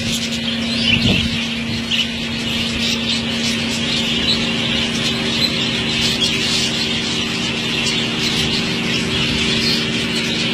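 A flock of exhibition budgerigars chattering continuously, many overlapping chirps and squawks, over a steady low hum.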